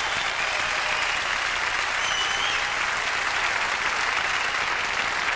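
Concert audience applauding steadily at the end of a live jazz number, with a brief high tone about two seconds in.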